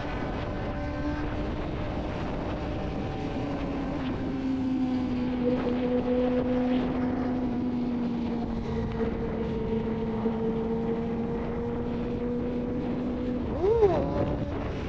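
Suzuki GSX-R600 inline-four engine running at steady cruising revs, with wind noise on the microphone. Near the end the revs rise and fall quickly once.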